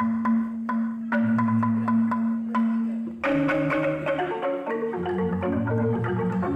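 Balinese bamboo gamelan of jegog and tingklik bamboo xylophones playing: an even beat of struck notes over a held low tone, then about three seconds in a busier passage of many quick notes begins.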